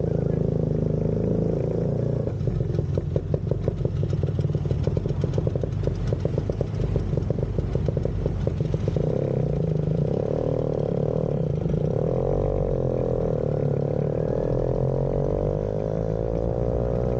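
Vespa scooter engine running under way. From about two seconds in it runs with a rapid, pulsing beat, and from about nine seconds in its pitch rises and falls as the throttle is opened and eased.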